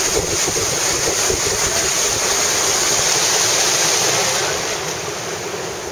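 Wind buffeting the microphone and water rushing past the hull of a center-console boat under way, a steady loud rush that grows quieter near the end.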